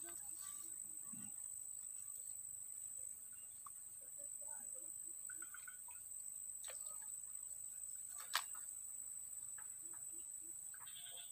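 Insects, crickets or cicadas, keeping up a steady high-pitched drone. A few faint rustles and one sharp click sound about eight seconds in.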